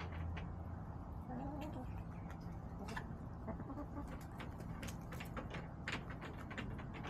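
Backyard hens clucking softly a few times about a second and a half in, amid frequent sharp taps and clicks, over a steady low hum.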